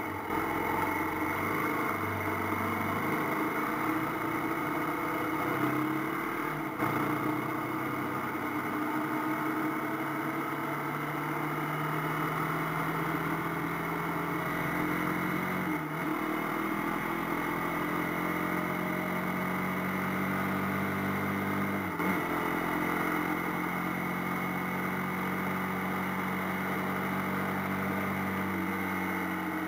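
AKT TT 250 Adventour motorcycle engine running under way in traffic. Its note climbs, then dips briefly twice, about halfway and about three-quarters through, as it changes gear.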